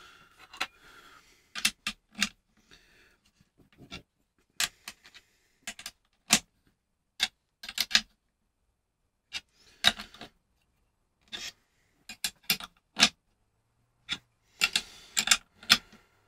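Irregular sharp metallic clicks and taps of steel nuts and washers on threaded rods against an acrylic frame, made as the nuts are turned and tightened by hand. The clicks come singly and in quick little clusters, with quiet gaps between.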